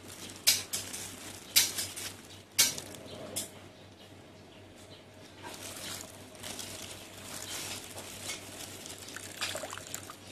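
Coconut milk pattering and trickling through a metal mesh strainer into a steel pot as grated coconut is squeezed by hand, with three sharp clinks in the first three seconds.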